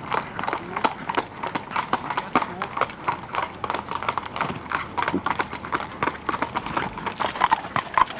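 Shod horses' hooves clip-clopping on a sealed road as several horse-drawn gigs trot past, a quick, irregular run of overlapping hoof strikes.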